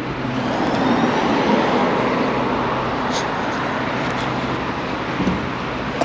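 Street traffic: a motor vehicle passing close by, its tyre and engine noise swelling in the first second and then slowly fading.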